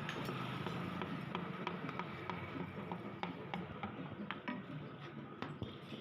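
Light metallic clicks and taps from hand tools working on the power tiller engine during assembly, a few irregular clicks a second over a steady low background hum.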